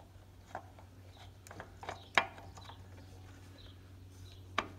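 Spin-on oil filter being screwed by hand onto a lawn tractor engine's filter mount: scattered light clicks and scrapes of fingers and the filter can, with one sharper click a little past two seconds in, over a faint low hum.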